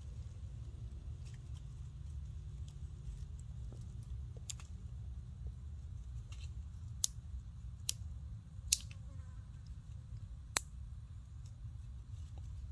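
Baby monkey sucking and mouthing its fingers: a handful of sharp wet mouth clicks, spaced irregularly and mostly in the second half, over a low steady rumble.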